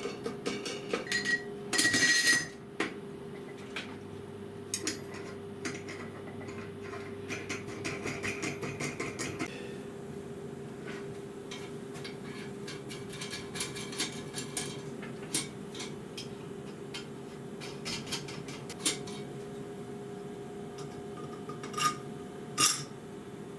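Steel threaded rods, nuts and metal plates clinking and knocking together as they are handled and fitted on a workbench, with a louder clank about two seconds in and two more near the end. A steady hum lies underneath.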